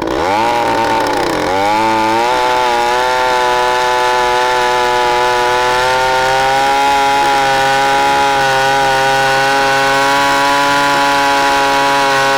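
Stihl gas chainsaw running at full throttle in an Alaskan chainsaw mill, cutting lengthwise through a log. The engine pitch dips twice in the first two seconds, then holds steady and high under load.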